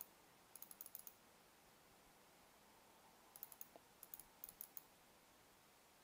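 Faint clicking of a computer mouse in two quick runs of several clicks each, about a second in and again around four seconds in, over near silence.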